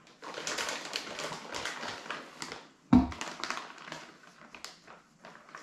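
Clear plastic bag crinkling and rustling as it is handled and cut open, with one loud thump about three seconds in.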